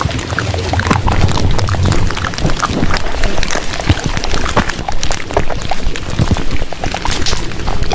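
Wet, splashy crackling noise full of small pops, loud and unbroken.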